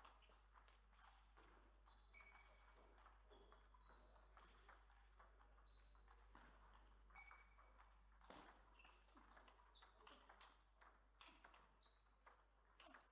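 Faint table tennis balls clicking off rackets and the table, many irregular taps with short high pings.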